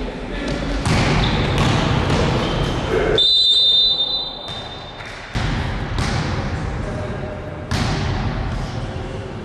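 Basketball game sounds in an echoing gym: the ball bouncing and thumping, players moving on the wooden floor and voices in the hall, broken by several abrupt cuts. About three seconds in, a high steady whistle sounds for a little over a second.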